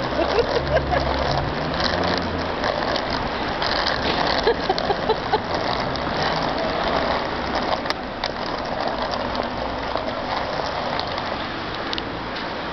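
City street noise with a vehicle engine idling low, and the small wheels of a wheeled shopping trolley clicking and rattling over the crossing and the pavement.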